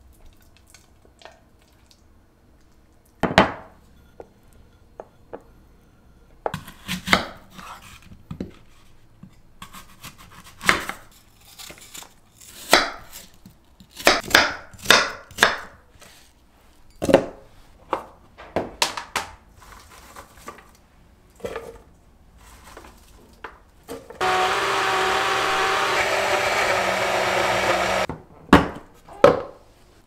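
Kitchen knife cutting peeled fruit on a wooden cutting board: a run of sharp, irregular knocks of the blade hitting the board. Near the end, a small electric kitchen appliance runs loudly and steadily for about four seconds, then two more knocks follow.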